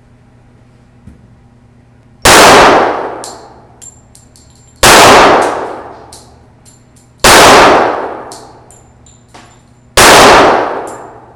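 Four handgun shots fired slowly, about two and a half seconds apart, each very loud with an echoing tail that dies away over about a second. Small, sharp metallic clinks come between the shots.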